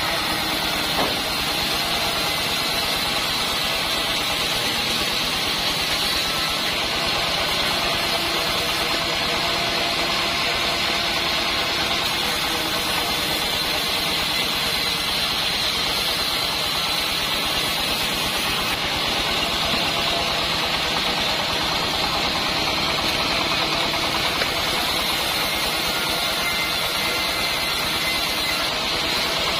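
Homemade band sawmill running steadily with a continuous, even machine noise.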